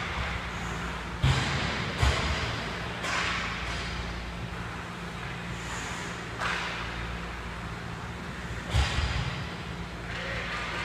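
Ice hockey rink sounds: skate blades scraping and carving the ice, with three sharp knocks, about a second in, at two seconds and about three-quarters through.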